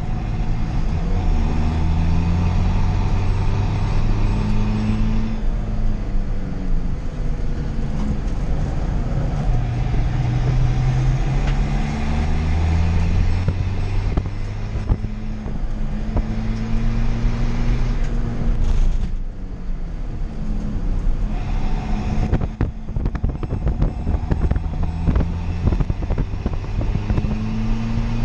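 Toyota Yaris D-4D turbodiesel race car engine heard from inside the stripped cabin under hard acceleration, its pitch rising through each gear and dropping back at the shifts, easing off briefly about two thirds of the way through. Many small knocks and rattles run through the engine noise.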